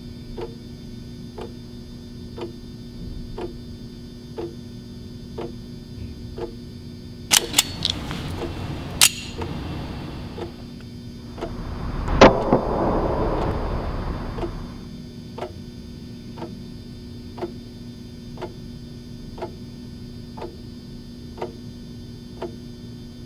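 Clock ticking about once a second over a low hum. About seven seconds in, a few sharp clicks come, and about twelve seconds in a single loud crack followed by a hiss that fades over a few seconds, before the ticking goes on.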